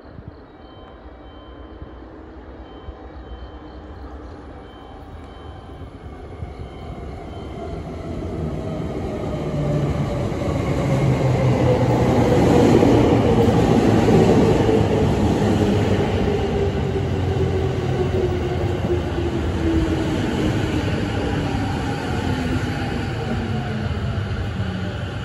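Sotetsu 10000 series electric train with a Mitsubishi IGBT VVVF inverter arriving and braking. The inverter-driven motors' whine falls steadily in pitch as the train slows, over wheel and rail noise that grows loud as the cars run past about halfway through.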